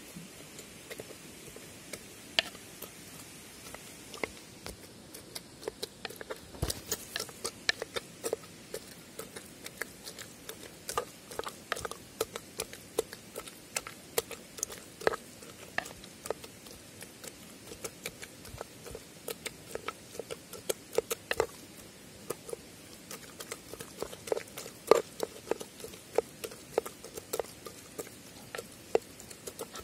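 Metal pestle pounding and mashing stew meat, chickpeas and potato against the bottom of a stone dizi pot: irregular quick taps and clicks, often several a second, with soft squelching in between.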